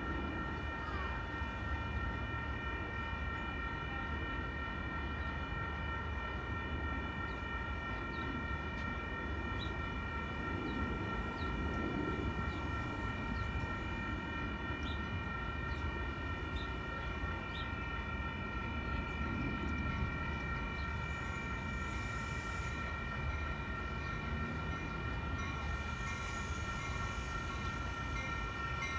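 A commuter train approaching in the distance: a low rumble with a steady high whine made of several held tones, unchanging throughout.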